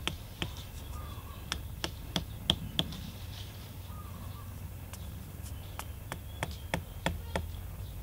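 Hammer driving thin bamboo stakes into sandy ground: sharp knocks a few a second, in two runs with a pause of about two seconds between them.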